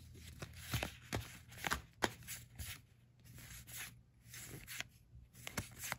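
Magic: The Gathering trading cards being flicked off a hand-held stack one at a time: a string of soft, irregular card flicks and rubs, two or three a second.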